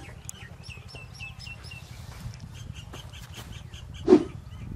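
Small birds chirping repeatedly in the background, with one short, loud low call or cluck about four seconds in.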